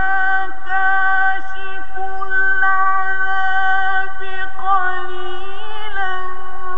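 Male Quran reciter's voice holding one long, high drawn-out note in melodic chanted recitation, with small ornamental steps in pitch about two-thirds of the way through.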